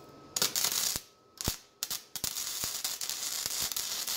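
Flux-core wire-feed welding arc crackling and spitting as a nut is welded to a steel plate. The arc strikes about a third of a second in, drops out after about half a second with a single pop, then strikes again and crackles steadily with sharp snaps.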